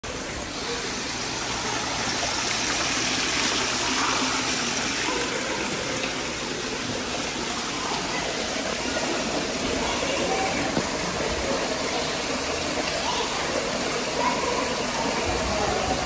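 Steady splashing of a small artificial rockwork waterfall spilling into a shallow pool.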